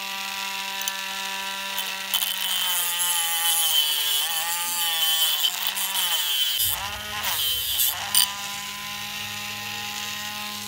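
Handheld mini grinder with a sanding drum spinning with a steady whine, then grinding metal off the fan's motor-housing bushing mount. For several seconds in the middle its pitch sags and wavers under the load, with a grinding hiss. Near the end it runs free again at a steady pitch.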